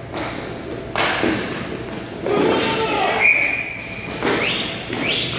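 A sharp thump about a second in, with shouting voices around it.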